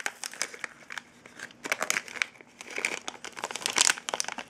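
Plastic blind-bag packet of a Lego minifigure crinkling as hands rummage in it and pull out the small parts, in irregular bursts, loudest a little under two seconds in and again near the end.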